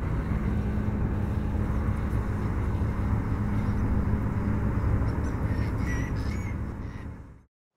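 Outdoor rumbling noise with a steady low hum, and a few short bird calls about five to six and a half seconds in; it fades out and drops to silence near the end.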